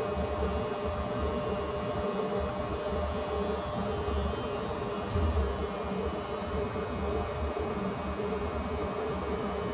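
Electric hair clippers running with a steady buzz.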